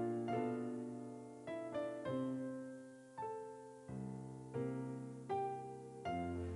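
Slow solo piano music: chords struck one after another, each ringing and fading before the next.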